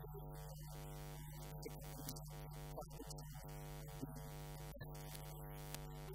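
Steady electrical mains hum with a buzzy stack of overtones, running through faint, broken fragments of a man's voice.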